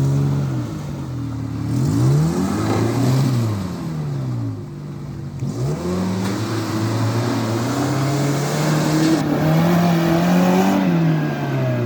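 Off-road 4x4's engine revved up and down several times under load, held high for several seconds in the second half, as the vehicle tries to dig its way up a muddy slope with its wheels spinning.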